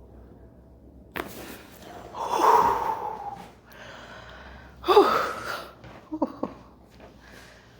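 A patient gasping and exhaling loudly twice during a chiropractic adjustment, with a sharp crack about a second in and two short pops near the end.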